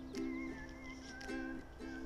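Light background music: plucked chords repeating in short notes, with a wavering higher melody line over them.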